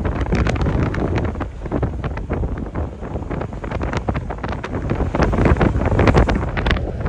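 Wind buffeting a microphone at the open window of a vehicle driving on an unsealed dirt road, over a steady low rumble, with frequent irregular sharp clicks and knocks throughout.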